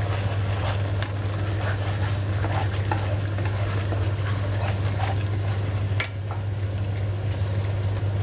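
Wooden spatula stirring a thickened chilli sauce as it simmers in a non-stick kadhai, with scattered small crackles and scrapes and a sharper click about six seconds in, over a steady low hum.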